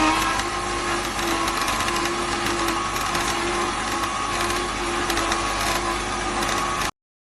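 AMZCHEF 200 W slow masticating juicer running, its motor humming steadily under a dense crunching grind as the auger crushes produce; the sound cuts off abruptly near the end.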